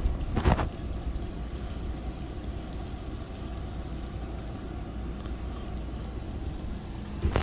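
Ground coffee poured from a glass jar into a blue enamel percolator partly filled with water, with a brief knock about half a second in, over a steady background hiss and rumble.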